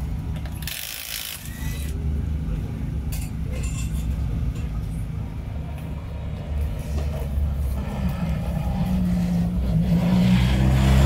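Rally car engine idling, its drone growing louder and fuller over the last few seconds as the car moves off nearby. A short, sharp burst from an air tool sounds about a second in.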